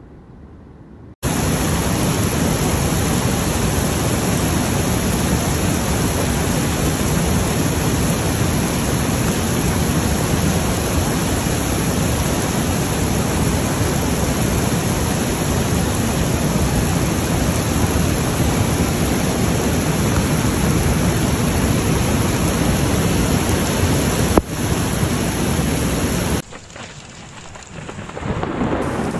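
Loud, steady rush of water that cuts in abruptly about a second in. It drops away sharply a few seconds before the end, and a quieter hiss then builds up again.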